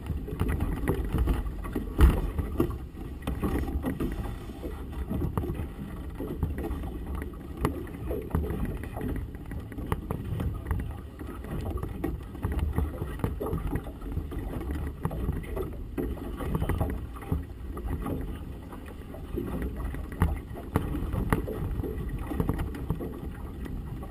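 Gusty wind buffeting the camera microphone over choppy water slapping a small boat's hull: a rough, uneven low rumble, with a sharper thump about two seconds in.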